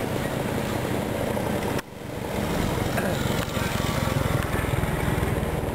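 An engine running steadily with a rapid low pulsing, cut by a brief dip about two seconds in.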